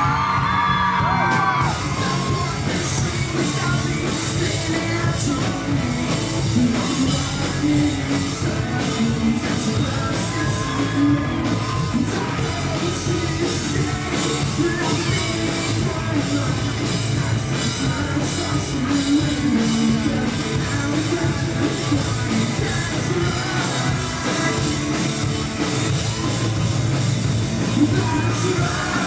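Live rock band playing loudly in a large hall, with singing and yelling over the instruments.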